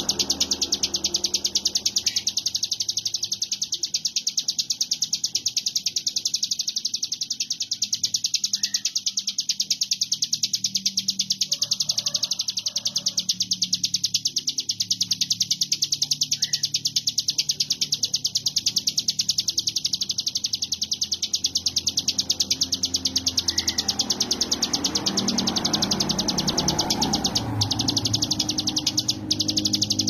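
Ciblek gunung, a prinia, singing in one unbroken rapid high trill. It repeats very fast, even notes with no pause, the buzzy 'konslet' style of song.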